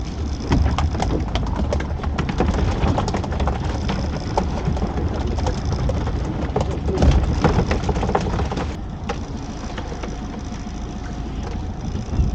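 Sea water splashing and slapping against a small boat, with wind rumbling on the microphone and many small clicks and knocks throughout.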